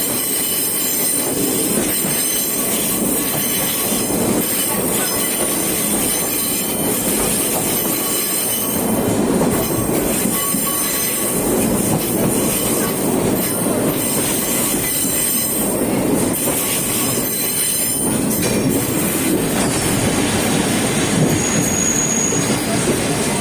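Sagano Romantic Train carriage running on the rails, heard from aboard: a steady rumble and rattle of wheels on track, with a thin high wheel squeal over it.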